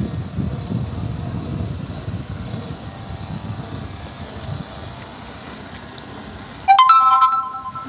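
Low engine rumble of an approaching farm tractor, mixed with wind on the microphone. Near the end comes a sudden, loud pitched tone that steps up in pitch and lasts about a second.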